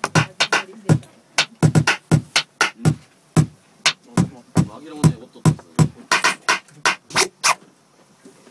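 A percussive beat of sharp, kick- and snare-like hits, several a second, that stops shortly before the end.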